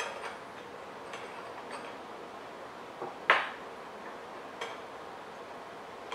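Light glass clicks and taps as a glass water pipe is handled, with one much louder sharp clink about three seconds in, over a steady low hiss.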